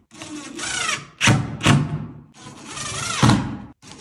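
Cordless drill driving screws into a plastic tub-drain flange on a plywood subfloor. The motor runs in short bursts of about a second, its whine rising as it spins up and dropping under load, with sharp knocks between and during the runs.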